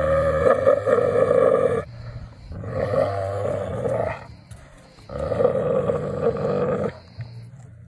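Wolves growling as they tear at a chunk of raw meat: three long growls of about two seconds each, with short breaks between.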